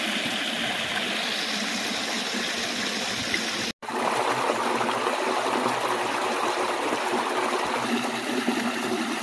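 Steady rush of running water, as from a creek spilling over a low dam. It cuts out for an instant about four seconds in and then carries on.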